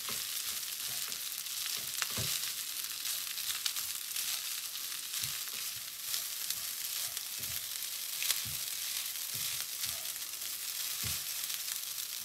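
Egg-yolk-coated rice sizzling in oil in a stainless frying pan over medium heat as it is stir-fried. A spatula turning the rice gives soft thumps and scrapes at irregular intervals, about one a second.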